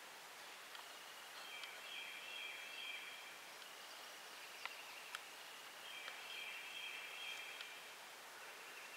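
Faint woodland ambience with a small songbird's high, trilled song, each phrase about two seconds long, heard twice, and two sharp ticks near the middle.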